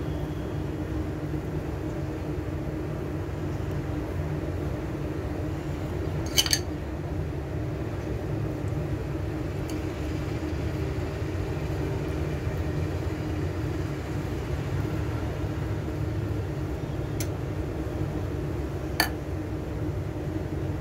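Steady low hum of kitchen background noise, with a few sharp, ringing clinks of a metal knife against a glass bowl as potato filling is spread on bread. The two loudest clinks come about six seconds in and again near the end.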